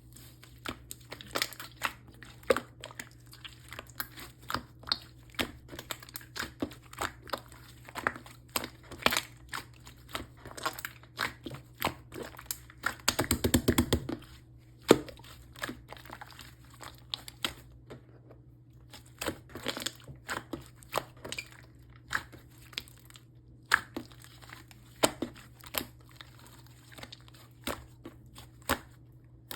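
Yellow marbled slime topped with clay being squeezed and poked by hand, giving many irregular short clicks and pops, thickest about 13 seconds in.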